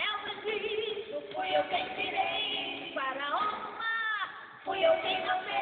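A woman singing a Portuguese gospel song into a handheld microphone, holding wavering notes and sliding through a phrase about three seconds in. Recorded on a mobile phone, so the sound is thin and lacks high treble.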